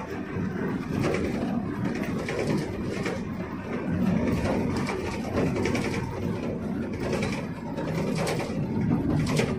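Cabin noise of a Budiman intercity bus on the move: a steady low rumble of engine and tyres, with short rattles about once a second.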